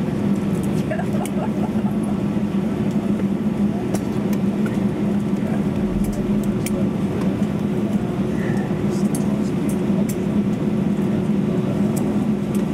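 Steady hum of an Airbus A320neo's cabin air-conditioning while the aircraft stands parked after landing, with a constant low droning tone. Scattered light clicks and rustles sit over it.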